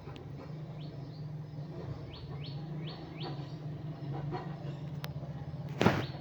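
A bird chirping repeatedly, each call a short note falling in pitch, over a steady low hum. A sharp knock sounds near the end.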